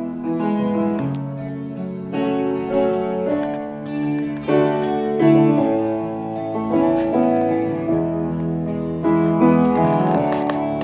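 Slow instrumental music: keyboard and guitar playing held chords that change about once a second, with no drums.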